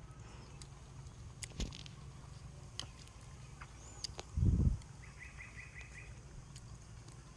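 Outdoor rural background with a few light clicks, a short low thud about four and a half seconds in, and a bird giving a quick series of about six chirps right after it.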